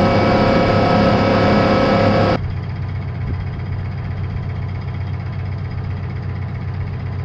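Diesel engine of a 10-wheeler truck running steadily. About two and a half seconds in the sound drops suddenly to a quieter, duller engine hum.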